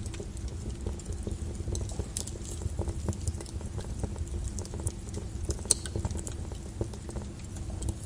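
Fire burning in a fireplace: a steady low rumble with scattered crackles and pops, one sharper pop a little after halfway through.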